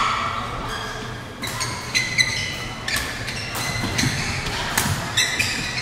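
Badminton doubles rally: a series of sharp racket-on-shuttlecock hits mixed with short high squeaks of court shoes on the floor, over the steady hum of a large sports hall.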